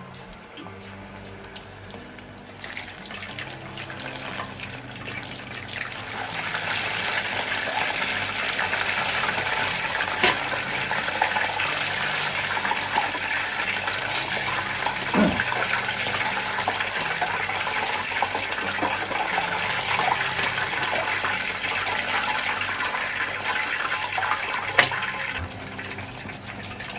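Potato-starch-coated venison pieces deep-frying in hot oil: a steady sizzling hiss that swells about six seconds in and eases near the end, with a couple of sharp pops along the way.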